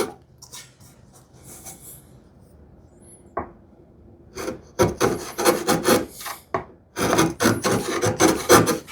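Wood chisel paring and scraping to clean up and level a groove, hand-held. After a fairly quiet stretch with a single stroke, a run of quick rasping strokes starts about four and a half seconds in.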